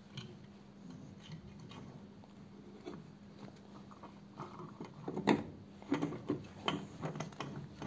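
Oil filter canister and its lid being handled and seated by hand: light scrapes and clicks, getting busier about halfway, with several knocks and the loudest clank about five seconds in.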